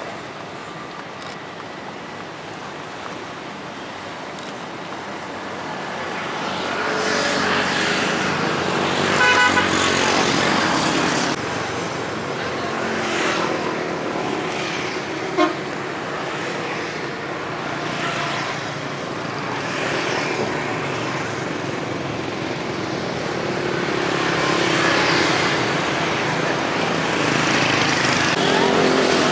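Road traffic noise with vehicle horns. A horn toots for about a second around nine seconds in, and a short beep sounds again near fifteen seconds.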